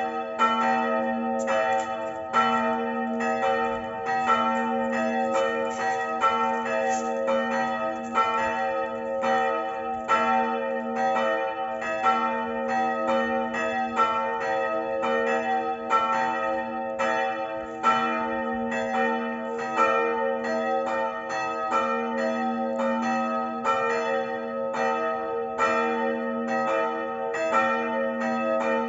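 Church bells swinging and ringing together, their strikes overlapping in an uneven rhythm over the steady ring of their tones: the evening peal (Abendläuten), rung automatically by a digital bell controller.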